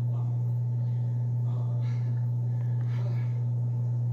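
A loud, steady low hum that does not change, with faint, indistinct voices in the background.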